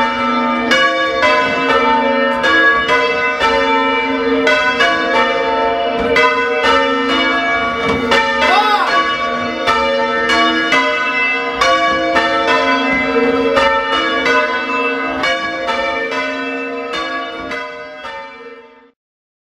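Small ring of church bells change ringing, the bells striking in a steady even rhythm with their tones ringing on between strokes. Near the end the striking stops and the bells' hum fades before the sound cuts off suddenly.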